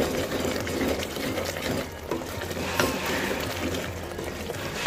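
Palak gosht (spinach and meat) bubbling and sizzling in the pot as it is fried down until its water dries off, a dense patter of small pops. One sharp tap about three seconds in.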